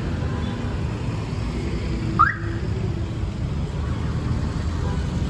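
Street traffic with a minibus engine running close by, a steady low rumble. About two seconds in comes one short, high chirp that rises in pitch.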